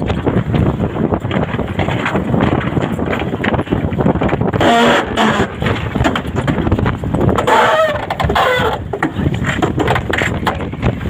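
Wind buffeting the microphone over rushing water aboard a Volvo 65 ocean racing yacht under sail, with a couple of brief higher-pitched gusts of noise about five and eight seconds in.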